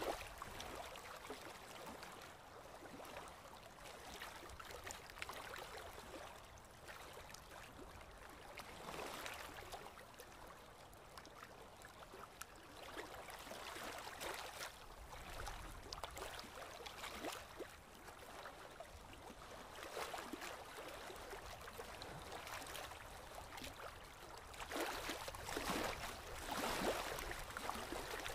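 Chicken cooking in a metal pot of tomato and onion sauce: a steady sizzling and bubbling, with a spoon now and then stirring and scraping against the pot. Louder stretches near the end.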